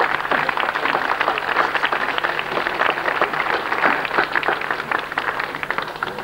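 Crowd applauding: a dense run of many hands clapping that eases slightly near the end.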